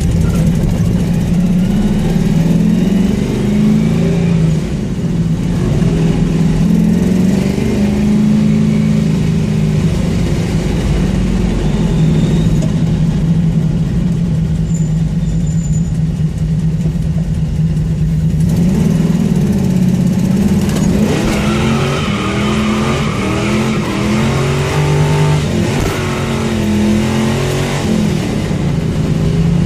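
Car engine running with an exhaust leak, its pitch wavering up and down with the revs in the second half.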